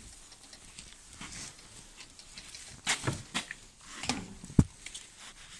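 Cloth rustling and a few sharp knocks as a fabric cover is handled at a wooden rabbit hutch, quiet at first, then several knocks from about three seconds in, the loudest a thump near the end.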